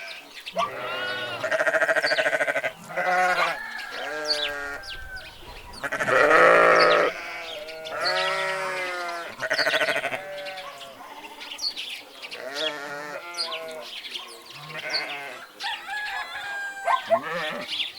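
A flock bleating: many overlapping wavering bleats, one after another, the loudest about six seconds in, with short high chirps between them.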